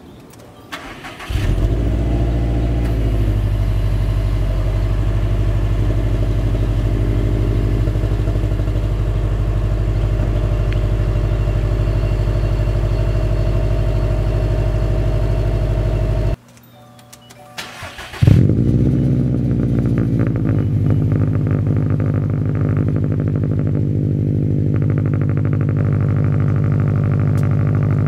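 A 2015 Subaru WRX STI's turbocharged 2.5-litre flat-four is cold-started twice. On the stock exhaust it cranks briefly, catches and settles into a steady cold-start idle. About sixteen seconds in it cuts away, and the engine is started again on a Tomei Expreme Ti titanium cat-back exhaust, with a loud bark as it catches and then another steady idle.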